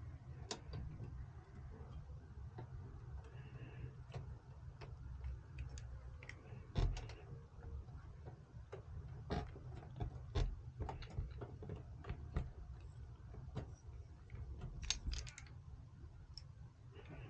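Irregular light clicks and taps of small hard parts being handled, over a steady low hum.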